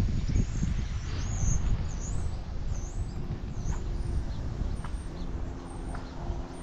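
Wind buffeting the microphone in a low rumble, with a small bird's high, warbling chirps over the first few seconds.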